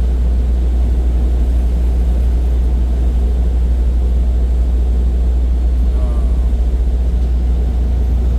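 Steady low drone of a semi-truck's engine and road noise heard inside the cab while driving.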